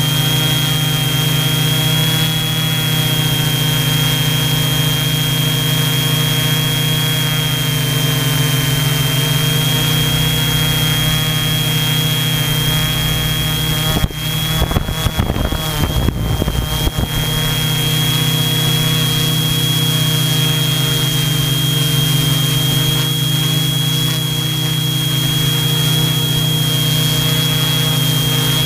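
Hexacopter's six Sunnysky V3508 580Kv brushless motors and propellers running at hover, heard up close from a camera on the frame: a steady drone with a high, steady whine over it. For a few seconds around the middle the sound wavers unevenly, then settles back to the steady drone.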